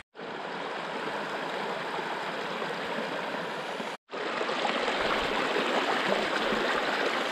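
Small rocky stream running over stones in shallow cascades: a steady rush of water, broken by a brief cut to silence about four seconds in, a little louder after it.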